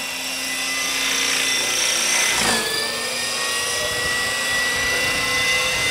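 Radio-controlled model helicopter flying overhead: a steady high whine from the rotor and drivetrain. About two and a half seconds in, a short whoosh comes as the whine dips in pitch, and the whine then slowly climbs back up.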